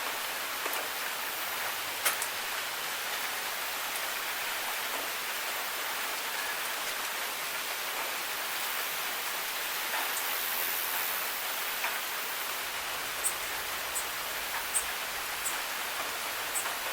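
Steady rain falling, an even hiss with a few sharp drip ticks now and then.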